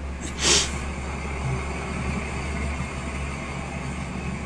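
Steady low rumble of a car heard from inside, with a short hiss about half a second in.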